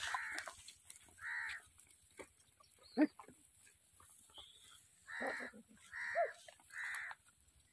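Short, harsh animal calls repeating at intervals, three in quick succession near the end, with one sharper, louder call about three seconds in.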